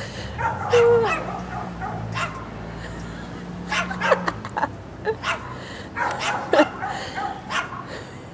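Small dog barking and yapping in short, sharp, high calls, a dozen or so at irregular intervals, at a person walking toward it.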